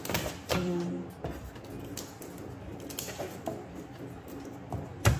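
Kitchen knife knocking on a wooden cutting board as garlic cloves are crushed and chopped: a few scattered knocks, the sharpest one just before the end.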